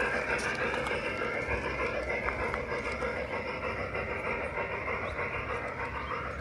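Large-scale garden railway model train with a small steam locomotive running on outdoor track: a steady rattling whir of motor and wheels on the rails, slowly fading as it moves away.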